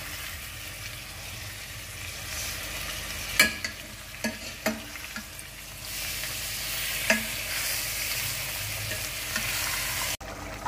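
Chicken pieces sizzling in hot oil and spice masala in a steel pot while a metal spoon stirs them, knocking against the pot a few times. The sizzle gets louder about six seconds in.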